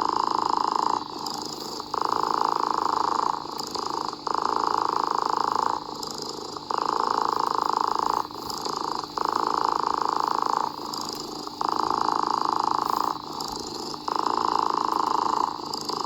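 A cat purring in a steady rhythm: a louder stretch of about a second and a half, then a quieter one, repeating roughly every two and a half seconds.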